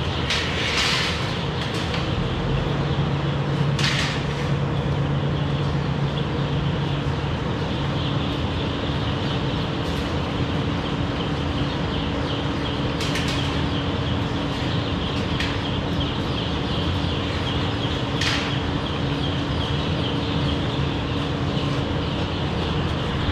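Continuous peeping of a large flock of young pullets in a caged poultry house, over a steady mechanical hum. A few short metallic rattles come from the cages' wire-mesh panels being handled, about a second in, near four seconds, and twice more later.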